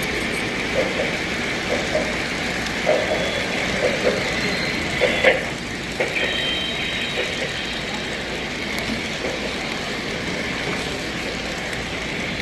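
Model trains running on a layout track, wheels clicking over the rail joints in a loose string about once a second over a steady running noise, with the loudest clicks about five seconds in.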